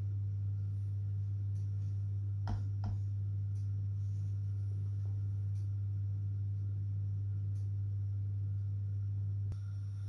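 A steady low hum throughout, with two light knocks about two and a half seconds in. Near the end a click, after which the hum drops a little.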